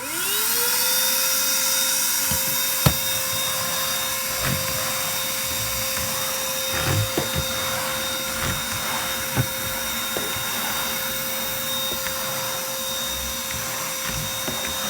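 Battery-powered KIMO wet/dry shop vac switched on, its motor spinning up within half a second to a steady high whine with a rush of air. Scattered sharp clicks and knocks, the loudest about three seconds in.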